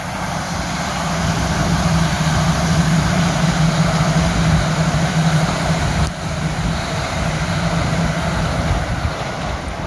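E5 series Shinkansen passing at speed: a steady rush of wheels on rail and air with a low hum under it. It is loudest a few seconds in and eases slightly toward the end.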